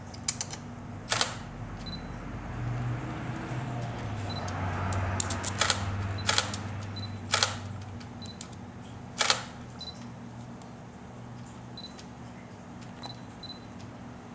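A handful of sharp clicks and taps, about seven of them, spread over the first ten seconds, over a low steady hum and some soft rustling.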